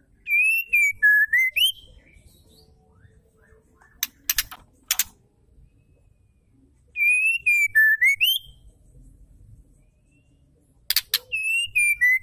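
Female white-rumped shama singing three short whistled phrases, each a clear whistle that dips and then rises sharply at the end, laced with very high, rapid twittering notes. A few sharp clicks come between the first two phrases.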